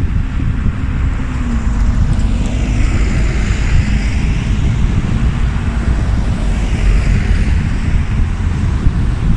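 Wind buffeting the microphone with a heavy low rumble. A vehicle-like whoosh swells from about two seconds in and fades away near the end.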